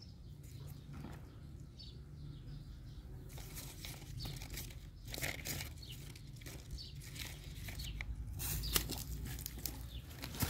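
A horse biting and pulling at a hand-held guava branch: leaves rustling and tearing, with irregular crunching snaps as it chews, louder about halfway through and again near the end.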